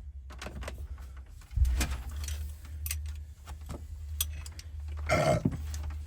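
Scattered metal clicks and knocks of hand tools and door hardware being handled at a van's side door, with a heavier thump about a second and a half in and another louder clatter near the end, over a steady low hum.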